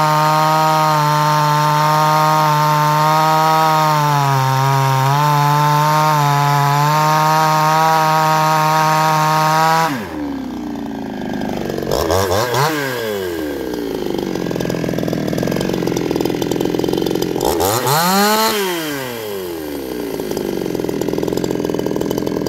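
52cc two-stroke chainsaw running flat out through a log, its pitch dipping briefly a few times under load. About ten seconds in it drops to a low idle. Twice the throttle is blipped in a quick rev up and back down.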